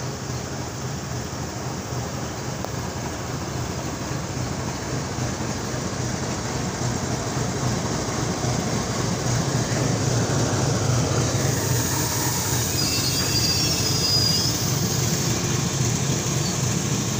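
Indian Railways WDG4G diesel freight locomotive passing close by on an adjacent track: a steady low engine rumble under rolling rail and wheel noise that slowly grows louder. A brief high wheel squeal comes in about three-quarters of the way through.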